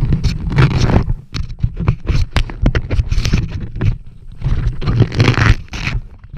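Racing quadcopter in flight heard through its onboard camera mic: loud, irregular wind buffeting and crackling rattle over a low rumble, without a clear motor whine.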